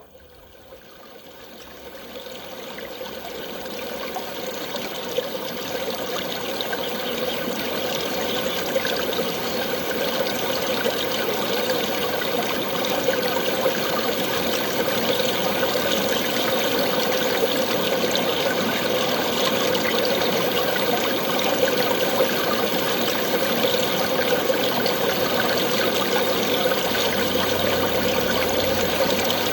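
Heavy rain falling as a dense, steady hiss, fading in from near silence over the first few seconds.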